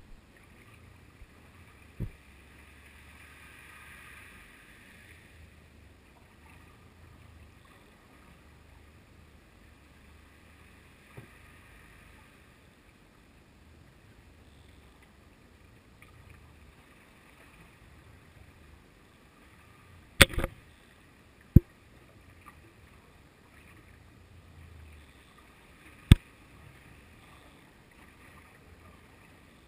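Muffled underwater sound picked up by a GoPro tied to a lead jigger hanging on a hand line: a faint low murmur broken by several sharp knocks. The three loudest knocks come in the last third.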